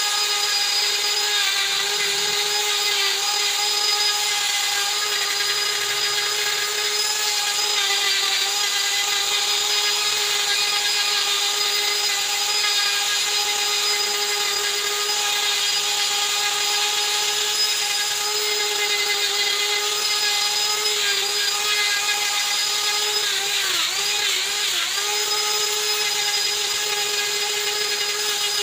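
Handheld electric rotary carving tool running with a steady high whine as its carving burr grinds into wood. Its pitch dips briefly twice near the end as the bit bites under load.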